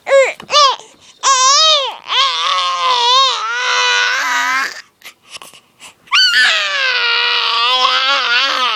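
Baby girl making loud, high-pitched wailing cries: two short ones, then two long wavering ones of a few seconds each.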